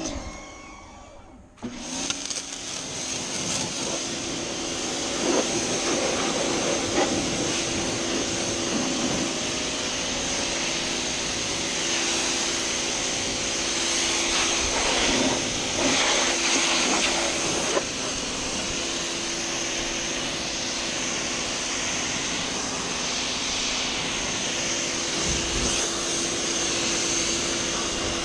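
PowerWorks 2000 PSI electric pressure washer spraying through a 25-degree nozzle: its motor and pump run with a steady hum under the hiss of the water jet. It cuts in briefly at the start, drops out for about a second, then runs on steadily from about two seconds in.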